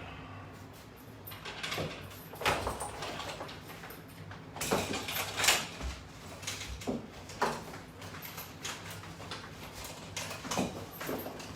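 Exercise gear being handled and moved aside: scattered knocks, clicks and rustling clatters, several louder ones about halfway through.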